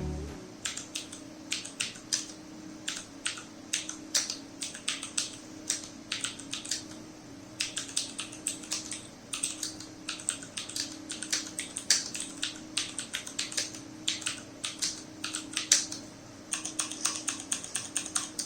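Typing on a HyperX Alloy FPS mechanical keyboard with Cherry MX Blue switches: a steady stream of sharp, clicky keystrokes at an uneven pace, which quickens into rapid typing near the end.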